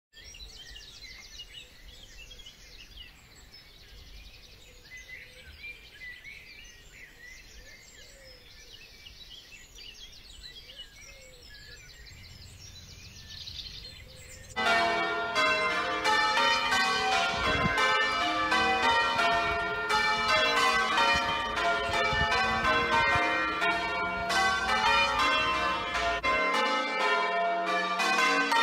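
Outdoor birdsong chirping faintly. About halfway through, a peal of church bells starts abruptly and loudly: change ringing, several bells striking in quick succession.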